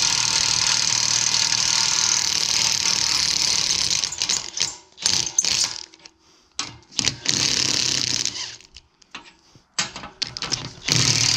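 DeWalt half-inch drive impact gun hammering on a tine nut of a muck grab for about four seconds, breaking it loose. Several shorter bursts follow as the nuts are run off.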